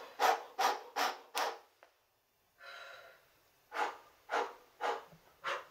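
Breathing exercise in a singing lesson: a run of short, sharp exhaled puffs of breath, about three a second, then a longer, softer breath, then another run of puffs, slightly slower. It is breath-support work, letting the air come with energy rather than taking a breath.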